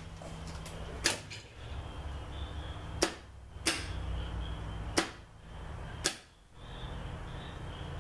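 Arc welder transformer buzzing steadily, with five sharp snaps spread through it, each followed by a brief drop in level.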